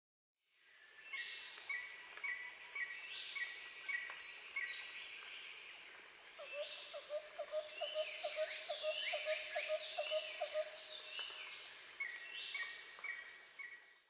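A bird chorus: many short high chirps and downward-sweeping whistles over a steady high-pitched buzz, with a lower, rapid run of repeated notes, about three or four a second, for a few seconds in the middle.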